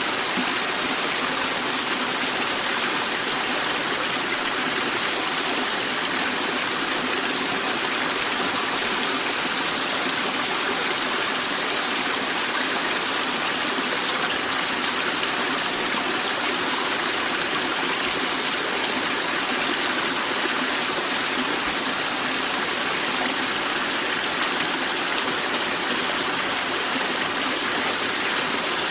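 River water rushing and splashing over rocks in a forest stream, a steady, even flow that does not change.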